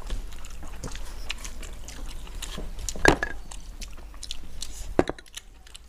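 Mukbang eating sounds: chewing, and fingers mixing rice on steel plates, with many small clicks and smacks. Dal is poured from a small glass bowl over rice a few seconds in, and two sharp clicks stand out, about three seconds in and near the end.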